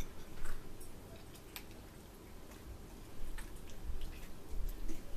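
Eating at a table: chewing and mouth sounds with scattered light clicks of a fork against a plate, over a low steady hum.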